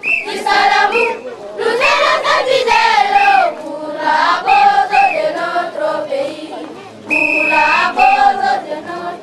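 A group of children singing together in a loud chant, with some long held notes near the end.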